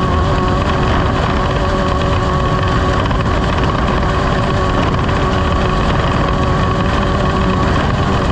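Off-road race vehicle's engine running hard and steady at a constant pitch, mixed with loud rushing noise from wind and terrain.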